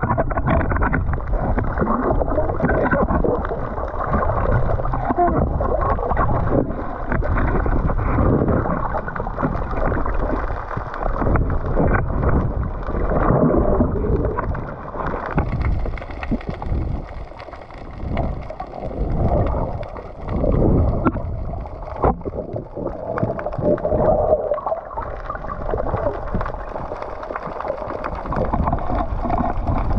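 Muffled, uneven water noise heard underwater through a camera's waterproof housing as a spearfisher swims, swelling and dipping every second or two.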